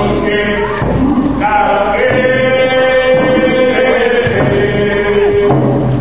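Group of Nisga'a dancers singing a traditional chant together, holding long notes, the pitch stepping down for a second held note just after the middle.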